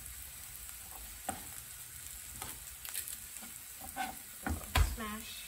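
Onions and carrots sizzling steadily in a hot frying pan, with a few sharp knocks of a chef's knife on a plastic cutting board as garlic cloves are smashed and cut. The loudest knock comes near the end.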